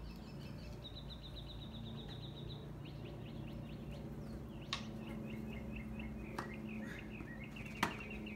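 Songbirds chirping, with a rapid trill about a second in and repeated short chirps later. A few sharp knocks of the ball in play stand out, the loudest near the end, over a steady low hum.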